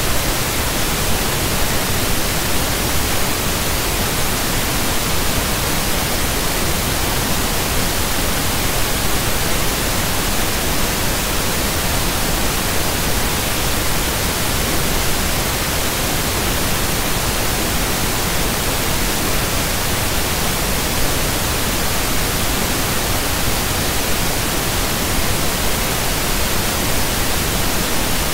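Loud, steady static hiss, even across all pitches and unchanging throughout, with no voice over it.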